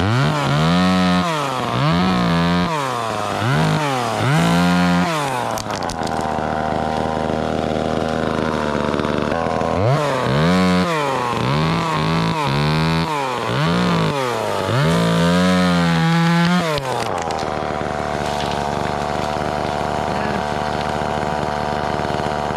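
Two-stroke chainsaw revved up to full throttle and back down again and again, in quick pulses of about a second each: a run of four, a steadier stretch, then five more, then a steady run to the end.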